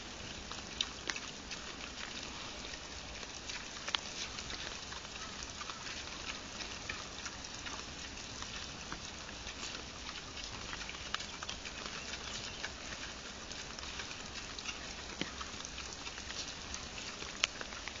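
Wild boar and piglets crunching and rooting for corn kernels: scattered small clicks and crackles over a steady hiss.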